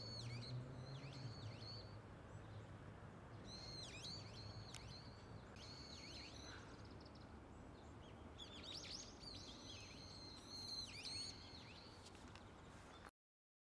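Small songbirds chirping in three short bouts of quick sweeping calls over steady outdoor background noise. The sound cuts off abruptly about 13 seconds in.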